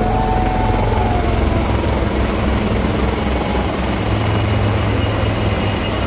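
Military helicopter flying over, a loud steady noise of rotor and turbine engine.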